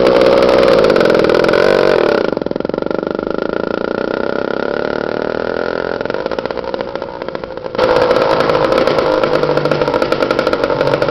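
Small engine of a motorized bicycle running under way with a fast, even buzz. It drops quieter and duller about two seconds in and comes back loud about eight seconds in.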